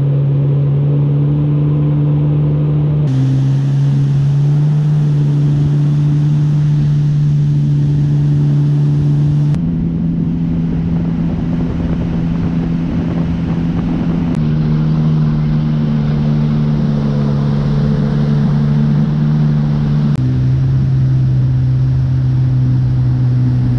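A jet ski engine runs steadily at speed over a rush of wind and water. Its pitch jumps to a slightly different steady note a few times.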